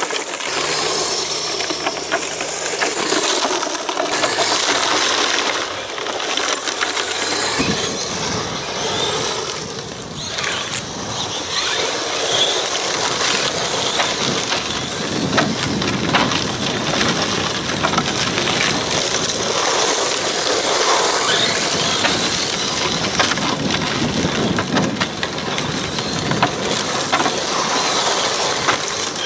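Radio-controlled rally cars driving over loose gravel, tyres crunching and scattering stones, with their motors running, continuing without a break.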